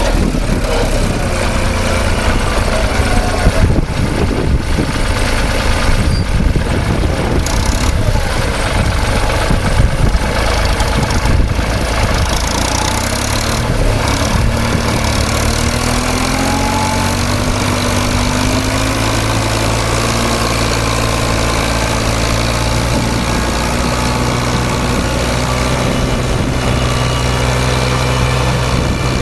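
Engine of a farm machine running steadily, with a few knocks and clatter in the first half before it settles to an even hum.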